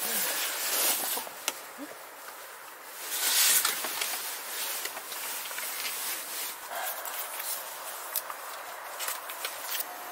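Rustling of tent fabric and handling noise, with scattered clicks and one louder rasping burst about three seconds in.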